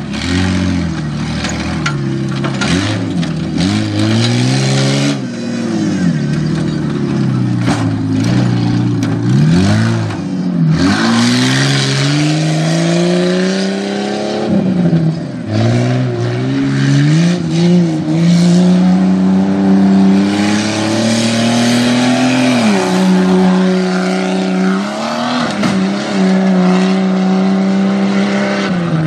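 1999 Jeep Cherokee's engine revving hard and easing off over and over, its pitch climbing and dropping as the throttle is worked through the course. A longer, steady high-revving stretch comes about three-quarters of the way through.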